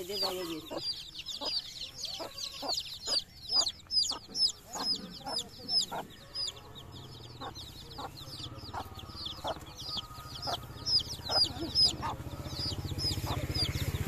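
Domestic chicken chicks peeping in a crowd: many short, high chirps that slide downward, several a second. A low steady hum builds underneath over the last few seconds.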